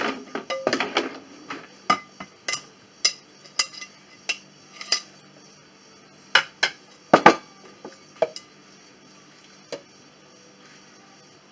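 Kitchenware being handled: bowls and utensils clinking and knocking against each other in about a dozen sharp, irregular knocks, dying away after about eight seconds with one last knock near ten seconds.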